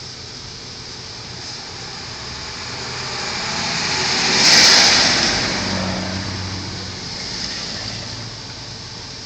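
A motor vehicle passing close by: its engine and tyre noise swell to a peak about four and a half seconds in, then fade away over a steady background hiss.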